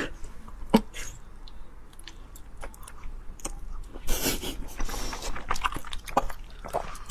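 Someone chewing and biting food close up, with scattered small clicks and a louder stretch of chewing about four seconds in.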